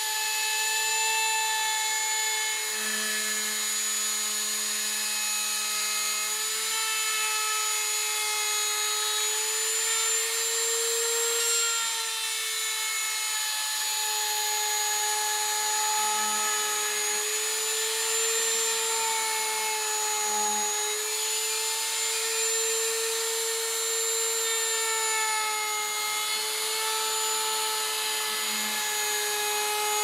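Electric power tool's motor running steadily, a high whine whose pitch sags and recovers slightly as it is loaded.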